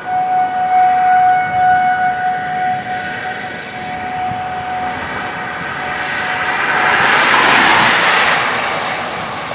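Outdoor tornado warning siren sounding a steady wail, loudest for the first few seconds and then fading. Near the end a rushing noise from a passing vehicle swells and dies away, briefly louder than the siren.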